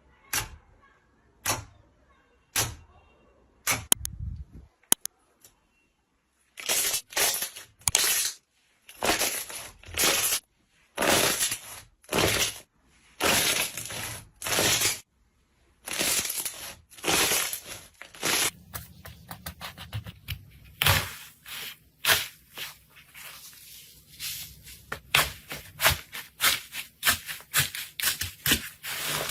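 Slime being played with by hand: a few sharp pops first, then a run of squishes about once a second, then dense crackling clicks from about two-thirds of the way in.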